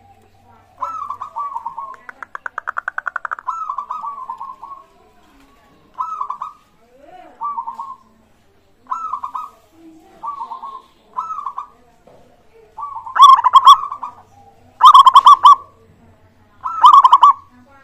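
Zebra dove (perkutut) cooing: a string of short, rolling coo phrases, with a fast stuttering trill about two seconds in. The last three phrases near the end are the loudest.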